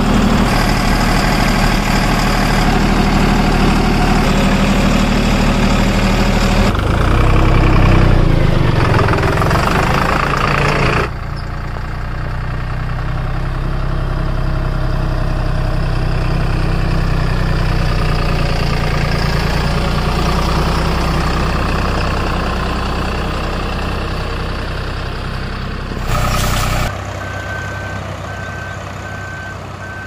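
Heavy vehicle engine running steadily, its sound changing abruptly a few times. Evenly spaced reversing beeps start near the end.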